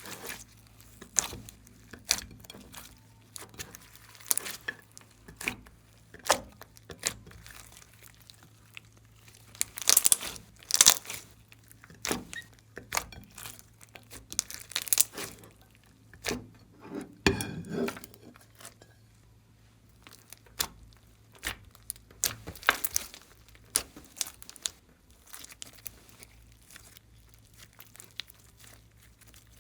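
Glossy slime being squeezed, stretched and pressed by hand, giving irregular sticky pops and crackles, loudest about a third of the way in.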